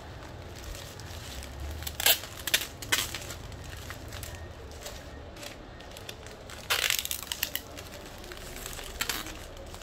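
Crinkling and rustling of bouquet wrapping paper and plastic mesh netting handled around a flower bouquet, in short sharp bursts, the loudest a little after two seconds and around seven seconds.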